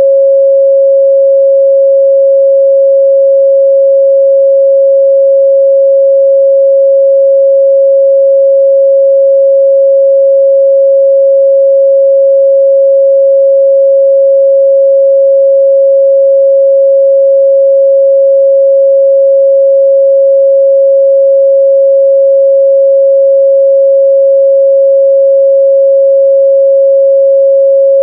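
A pure 547 Hz sine-wave test tone, held steady and loud at one pitch with no change.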